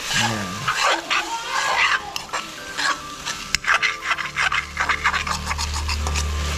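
Metal spatula scraping and clinking against a stainless-steel kadai as fermented soybeans (kinema) are stir-fried, in quick irregular strokes. A steady low hum comes in about four seconds in.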